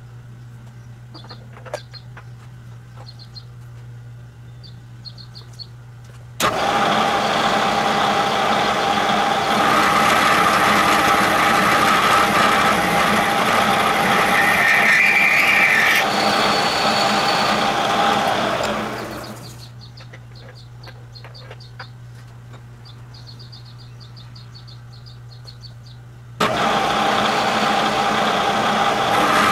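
A metal-cutting machine tool hums steadily with a faint ticking while it runs. About six seconds in, a cut on the steel stock begins abruptly: a loud grinding, hissing cutting noise that lasts roughly twelve seconds and then tapers away as the pass finishes. Near the end a second cut starts just as suddenly.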